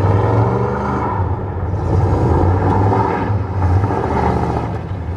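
A Chevrolet Caprice's 305 (5.0 L) V8 running through dual exhaust with a steady low exhaust note as the car drives across the lot. The engine is freshly tuned up with new spark plugs and wires.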